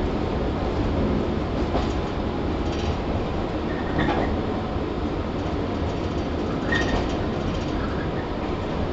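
Running sound inside a JR 115 series electric train, heard from the motor car KuMoHa 115-1015: a steady rumble of wheels on rail and motors, with a few scattered clicks.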